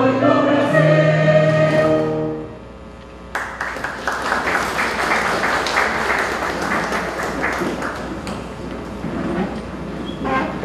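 Mixed choir ending an anthem on a held final chord that cuts off about two seconds in. After a brief pause the audience breaks into applause, which slowly dies down.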